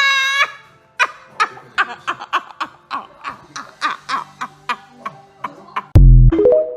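A person laughing in a string of short snickers, about three a second, then a loud, brief, low burst of sound near the end.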